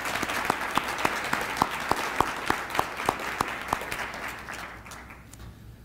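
Audience applause, with louder, evenly spaced claps close to the microphone at about three a second, dying away over the last two seconds.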